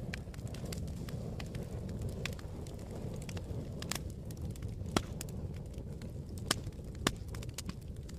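Log fire crackling in a fireplace: a steady low rumble of flames with scattered sharp pops, the loudest about five seconds in and two more near seven seconds.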